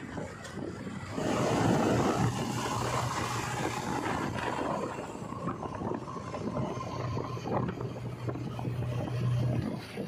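JCB 3DX backhoe loader's diesel engine running as the machine drives along a road, a steady engine hum with wind noise on the microphone; it gets louder about a second in.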